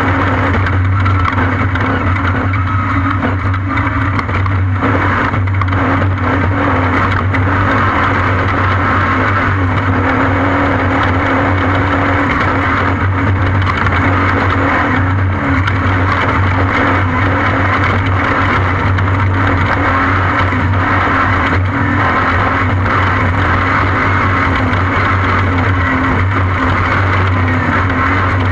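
Off-road race vehicle's engine running at a steady pitch under way, with a few brief knocks.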